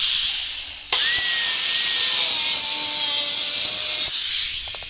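Power saw cutting through a piece of wood: a loud, steady, high-pitched cutting noise that breaks off briefly about a second in, then runs on and fades out near the end.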